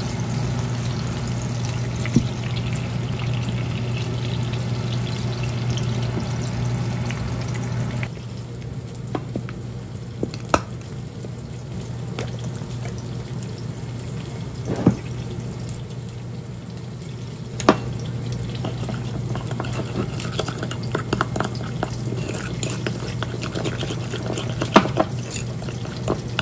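Pork burger patties sizzling in oil in a frying pan over a steady low hum. About eight seconds in the sizzle stops, and a few sharp knocks of utensils on a ceramic bowl follow. Near the end, a wooden spoon stirs mayonnaise in the bowl with quick small clicks.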